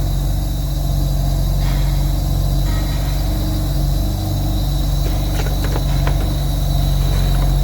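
Steady hiss of compressed air escaping during a cylinder leak-down test, over a constant low hum. The air is leaking from one cylinder into the next, a sign of a damaged cylinder head or a failed head gasket.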